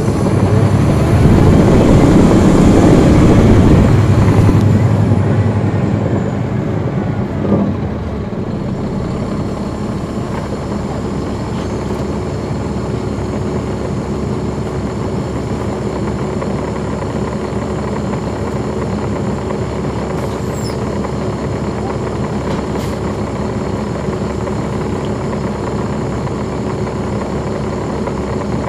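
Caterpillar C13 diesel engine of a NABI transit bus heard from on board, with its cooling fans off. It runs loud for the first four or five seconds, then eases to a steady, quieter run, with a brief knock about seven seconds in.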